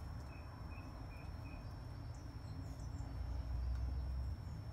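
Quiet outdoor background: a steady low rumble, a run of about six short bird chirps in the first second and a half, a few faint higher chirps a little past the middle, and a faint steady high whine.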